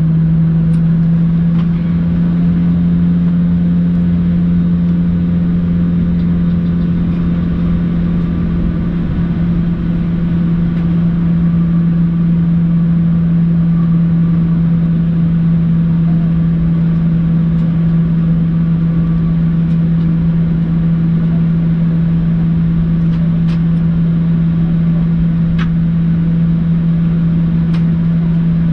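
Boeing 737-800 jet engines heard from inside the passenger cabin: a loud, steady drone with a strong low hum and fainter steady tones over a rush of air noise. A few faint clicks come in the last few seconds.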